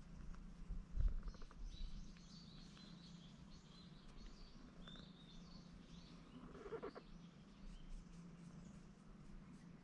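Small birds chirping and twittering in short phrases, with a low thump about a second in.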